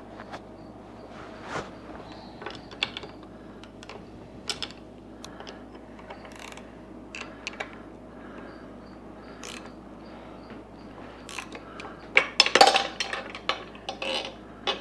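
Ratchet wrench clicking as a very tight 5/8-inch bolt is worked out of a MerCruiser gimbal housing. Single clicks come every second or two, then a run of louder, quicker clicks near the end.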